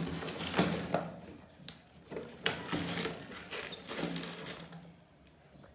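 Mice scrambling inside a clear plastic jar trap: irregular scratching, clicks and rattles against the plastic, dying down near the end.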